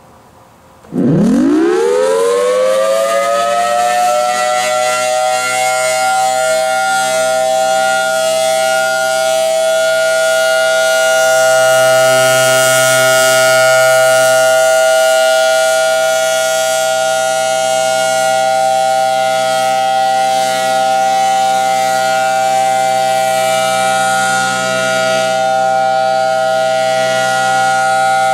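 Federal Signal Thunderbolt 1000T siren starting about a second in. Its pitch climbs steeply as it winds up over a few seconds, then it holds one loud, steady tone: the Alert (steady) signal.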